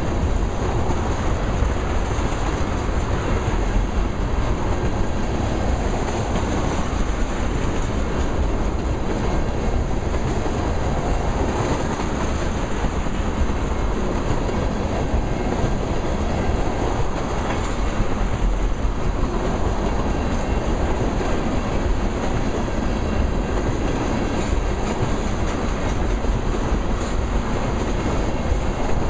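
Freight train's tank cars rolling past at close range, a steady rumble of steel wheels on rail that holds at one level throughout.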